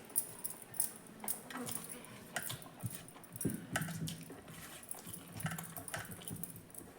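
Close-up eating sounds: chewing with frequent short, wet mouth clicks and smacks.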